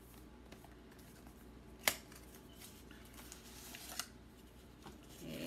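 Hands opening and handling an eyeshadow palette's box: a sharp click about two seconds in, a soft sliding rub, and a lighter click about four seconds in.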